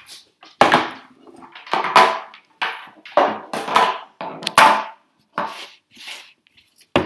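Handling noise: a run of about ten loud, irregular knocks and clatters as objects are moved about.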